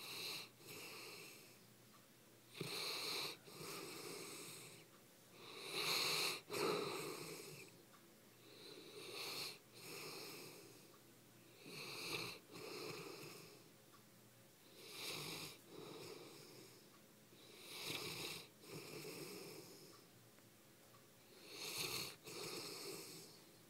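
English mastiff snoring in its sleep, one snore roughly every three seconds, each coming in two parts.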